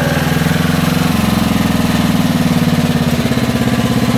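Engine of the vehicle with the small trailer, running steadily with an even pulsing beat; its note shifts slightly about a second in and again near the three-second mark.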